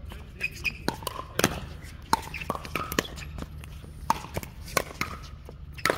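Pickleball paddles striking a hollow plastic pickleball in a fast volley exchange: a rapid, uneven run of sharp pops, about ten of them.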